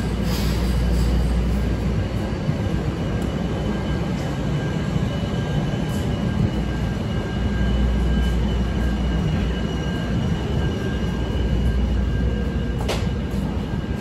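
A CTA 5000-series rapid-transit train pulls out of the platform and departs. Low rumble of the train throughout, with a steady high whine over most of its departure and a single sharp clack near the end.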